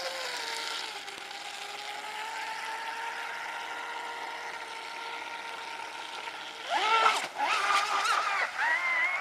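Electric motor of a radio-controlled racing catamaran running on a six-cell battery pack: a steady high whine over a hiss as the hull skims the water. About seven seconds in, the whine grows louder and swoops up and down in pitch with the throttle, then settles at a higher pitch.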